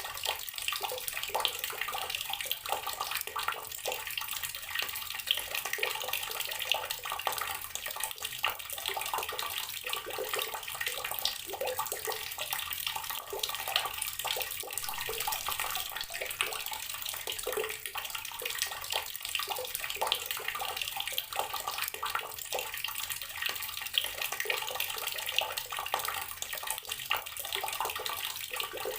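Tap water pouring steadily into a container already holding water, with a continuous splashing and bubbling patter.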